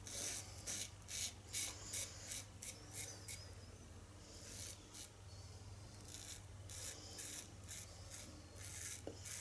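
Mühle R41 open-comb double-edge safety razor scraping through lathered beard stubble in short, repeated strokes, two or three a second at first, with a longer continuous scrape about halfway through.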